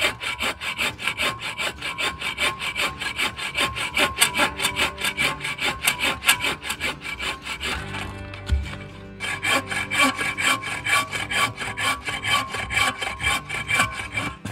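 Bow saw cutting through dead wood in quick, even back-and-forth strokes, with a short break a little past halfway before the sawing starts again.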